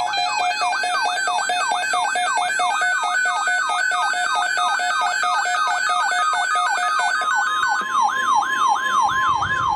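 Electronic emergency alert tone from a weather-alert receiver, the alarm for a tornado watch. A shrill tone sweeps downward over and over, about three times a second, slowing a little near the end. From about eight seconds in, a steady tone of about 1 kHz, the NOAA Weather Radio 1050 Hz warning alarm tone, sounds underneath it.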